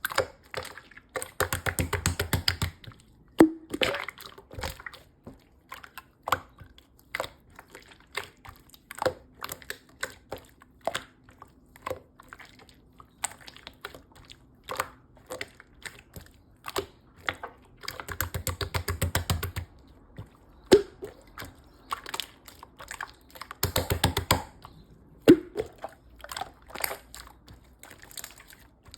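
Opaque light purple slime being squished and pressed, making scattered sticky clicks and pops. It breaks into three stretches of rapid crackling pops: about a second in, around two thirds of the way through, and again a few seconds later.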